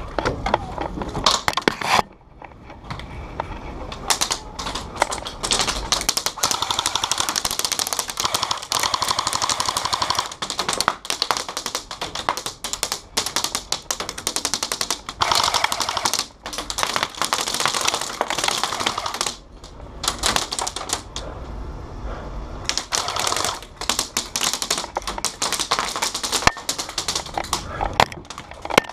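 Airsoft guns firing in long bursts of rapid clicking shots, with a few short lulls.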